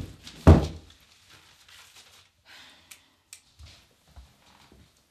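Two dull thumps about half a second apart as a person drops down to sit with a magazine in a small tiled bathroom. Soft paper rustling and two light clicks follow.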